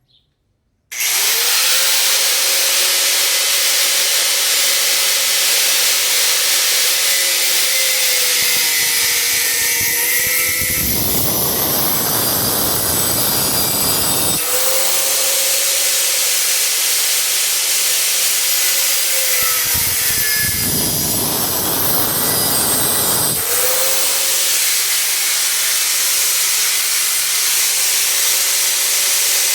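Handheld electric grinder switched on about a second in and running with a steady whine. Twice it is pressed into the workpiece for a few seconds, the whine sagging under load while a harsh grinding noise takes over.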